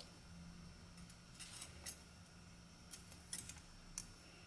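Light metallic clicks and clinks of Yamaha YXZ1000R clutch plates being handled and stacked onto the clutch hub: a handful of separate faint clicks, a few near the middle and more toward the end.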